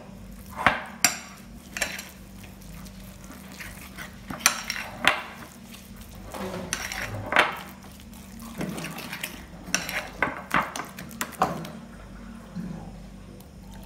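A metal utensil stirring and scraping a wet gram-flour batter in a glass bowl, with irregular clinks of metal against glass.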